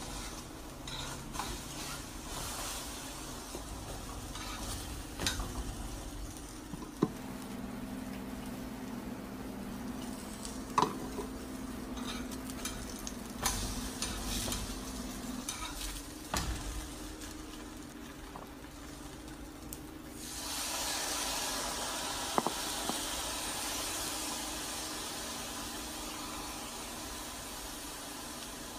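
Food sizzling in a hot pan, with a cooking utensil clicking against the pan every few seconds as it is stirred. About twenty seconds in, the sizzle turns louder and brighter and stays that way.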